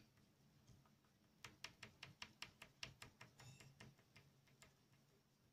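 Colored pencil flicked across paper in short, quick strokes, faint, about five strokes a second for a couple of seconds from about a second and a half in, with a few scattered strokes before and after.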